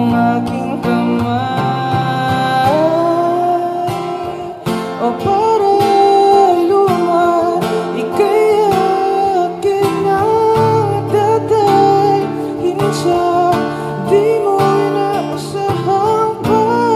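A man singing a slow Filipino ballad into a microphone, accompanied by his own strummed acoustic guitar.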